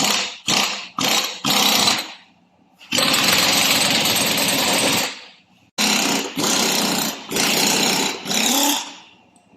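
Power tool, most like a pneumatic impact wrench, run in short bursts: four quick ones, a steady run of about two seconds, then four more bursts.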